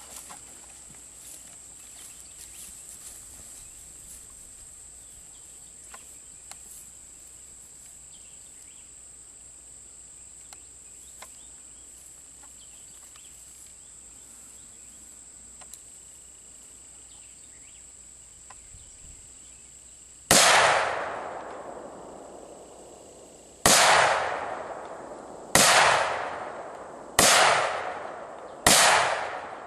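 Five rifle shots from an ATI Omni Hybrid AR-15 in 5.56, the first about twenty seconds in and the rest in quick succession every second and a half to two seconds. Each shot rings out with a long echoing tail. Before the shots there is only a steady high insect buzz.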